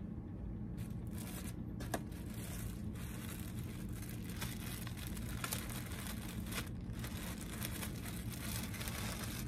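Clear plastic poly bag crinkling and rustling as it is handled and pulled open, with many sharp crackles, over a steady low hum.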